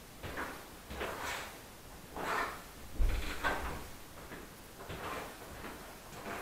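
A person moving about off camera: a series of irregular knocks and scrapes, the loudest a heavy thump about three seconds in.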